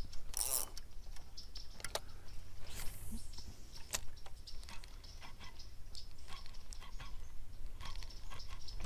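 Fishing reel being cranked as a lure is retrieved: faint, irregular mechanical clicks and ticks, with a brief swish about three seconds in.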